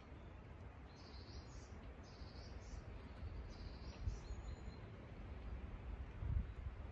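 Woodland birdsong: a small bird sings short, high chirping phrases about once a second, over a steady low rumble.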